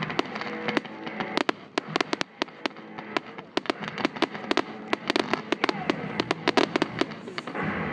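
Fireworks launching and bursting in quick succession: many sharp bangs and cracks, several a second, with music playing underneath.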